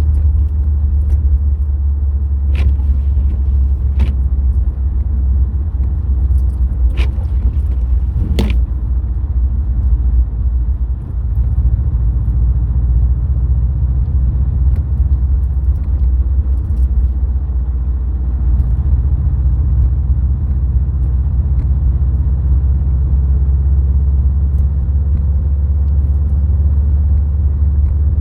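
Steady low rumble of a Subaru WRX STI being driven, engine and road noise together, with four sharp clicks in the first nine seconds.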